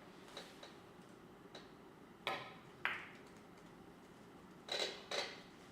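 Carom billiard balls clacking in a four-ball shot: two sharp clicks a little over two seconds in, half a second apart, then two more near the end, over faint room hum.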